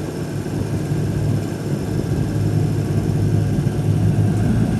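Catamaran's diesel engine running with a steady low hum while the boat is backed down in reverse to dig in and set its anchor.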